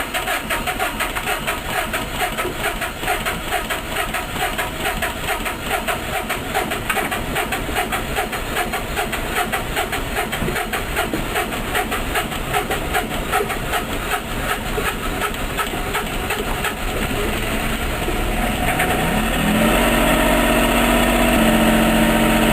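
Boat generator's engine, just rebuilt with a new head gasket, running with an even pulsing beat. About nineteen seconds in, its pitch rises and it settles into a louder, smooth, steady hum.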